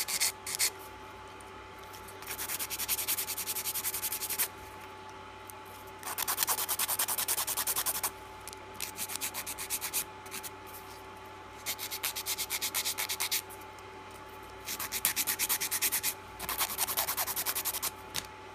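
Nail file rasping across an acrylic-powder-coated fingernail in quick back-and-forth strokes, in about six bursts of one to two seconds with short pauses between them. A faint steady hum lies underneath.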